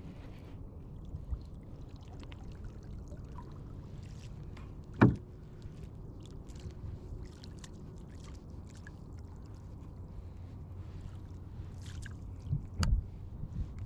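Water movement and small splashes around a Tucktec folding kayak over a steady low rumble, with one sharp knock about five seconds in and a few duller knocks near the end.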